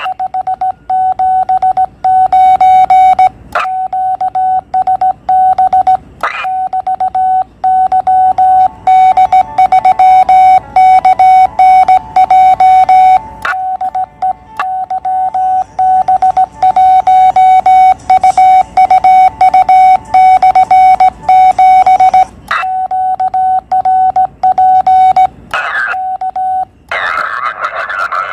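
Morse code (CW) tone of about 700 Hz from a Yaesu QRP transceiver, keyed by hand on a Morse key in an irregular run of dots and dashes: a signal report and sign-off being sent during a contact. Music comes in about a second before the end.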